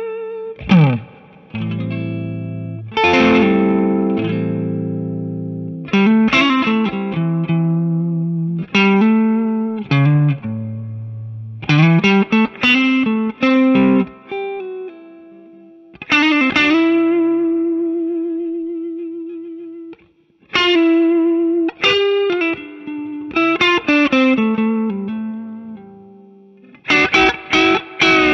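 Electric guitar, a Telecaster, played through the Ceriatone Horsebreaker overdrive pedal at medium gain: picked chords and single-note lines, with string bends and long notes held with vibrato.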